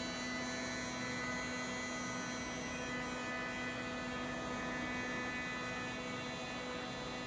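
Steady electrical hum and whine of a TOYDIY 4-in-1 3D printer's stepper motors and fans as the machine runs its homing and positioning moves, with a low hum that comes in abruptly at the start.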